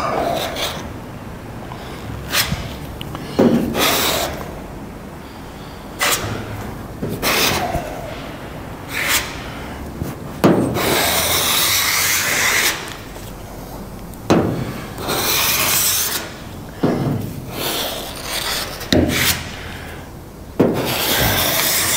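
A long flexible spreader blade (a filler spline) scraping body filler across a car's steel roof panel in about a dozen two-handed strokes, each a second or two long.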